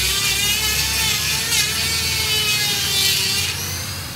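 Electric die grinder grinding down the weld bead on a repaired truck front axle, its whine wavering in pitch as it is pressed into the steel, then stopping shortly before the end.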